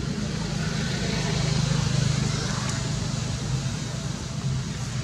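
Low, steady engine hum of a vehicle, swelling about a second in and easing off toward the end.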